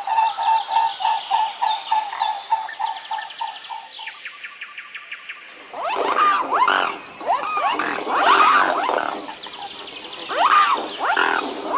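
Swans calling. First a run of short repeated notes, about three a second, fades out over the first four seconds, then comes a brief fast rattle. From about six seconds in, louder calls that rise and fall in pitch follow in overlapping bouts.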